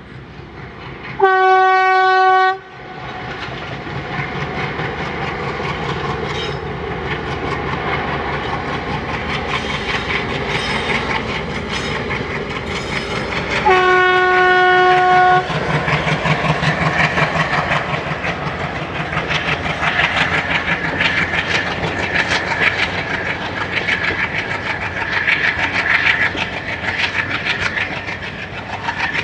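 WDM 3A ALCo diesel-electric locomotive with its 16-cylinder ALCo 251 engine accelerating hard with a passenger train. The engine chugs and grows steadily louder. The horn sounds twice: a short blast about a second in and a longer one about halfway through. In the later part the coaches add a rhythmic clatter of wheels over the rail joints.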